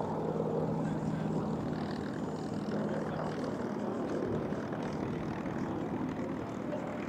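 The Bardahl Special, an unlimited-class propeller air racer of about 3,000 hp, flying past at racing speed. Its piston engine makes a steady drone.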